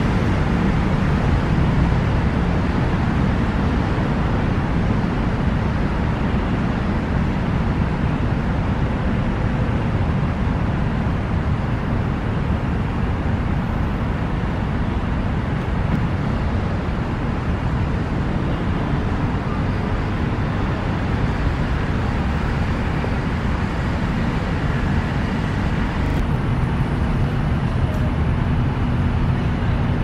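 Steady rumble of city road traffic, even and unbroken, with no bird calls standing out.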